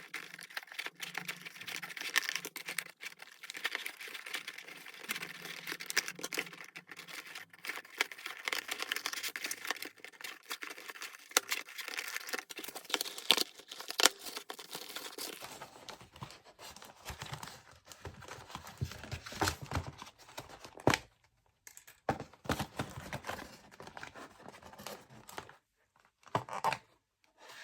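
Doll packaging being handled, crinkled and torn open, with dense crackling and rustling for the first half. In the second half it thins to separate rustles and handling clicks with short pauses.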